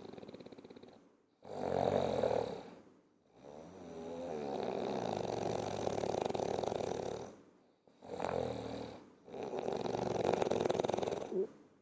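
A person snoring: a string of drawn snoring breaths with short gaps between, one of them held for about four seconds in the middle.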